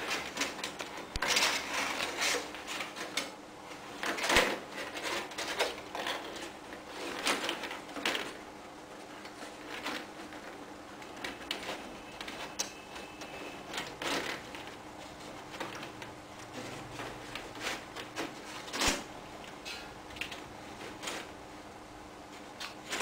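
Thin PVC ceiling tile crackling and clicking as it is flexed and handled into a suspended ceiling grid and pressed into place. The clicks come thick and fast for the first several seconds, then turn into sparser single taps, over a faint steady hum.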